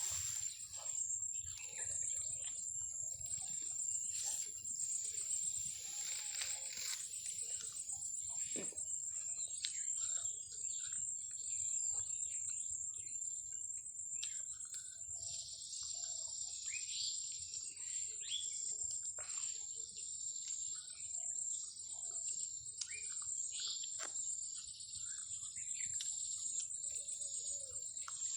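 Steady high-pitched insect drone with scattered short bird chirps and many faint clicks and rustles.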